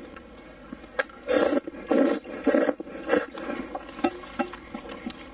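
A person slurping hot dry noodles: four loud slurps between about one and three seconds in, then softer wet chewing with small clicks.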